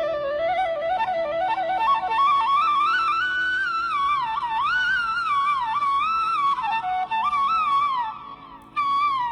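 Instrumental background music: a single flute-like melody with slides and ornaments over a low steady drone, climbing in pitch over the first few seconds.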